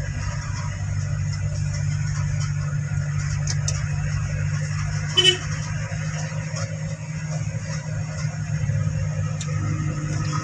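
Manual-transmission vehicle's engine running steadily in third gear under light throttle, heard from inside the cab as a constant low hum. A short horn toot sounds about five seconds in.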